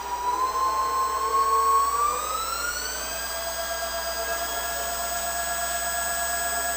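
Variable-speed spindle of an Atrump A2-5T CNC bed mill running with a steady whine. The speed is raised at the push of a button, and the pitch climbs from about one to three seconds in, then holds level at the higher speed.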